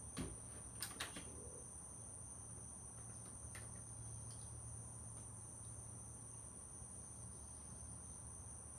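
Steady high-pitched chirring of crickets, with a few light clicks in the first second or so from hands working the plastic clips and hardware of a football helmet.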